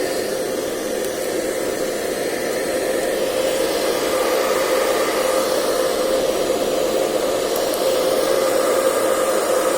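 Electric air blower running steadily, a constant rush of air with a steady motor whine, blowing dust out of an opened laptop.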